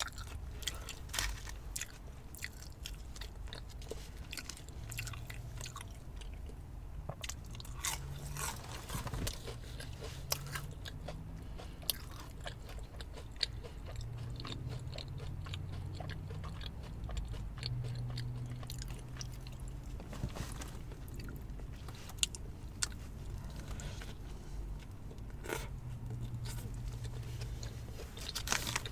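A person chewing and biting into fast food close to the microphone: many crunchy bites and wet mouth clicks, with a low hum now and then.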